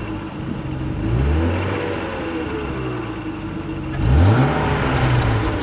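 BMW E36 320i's 2.0-litre straight-six on its stock exhaust, idling and revved twice: a blip about a second in and a quicker, louder one about four seconds in, each time the pitch rising sharply and then falling back to idle.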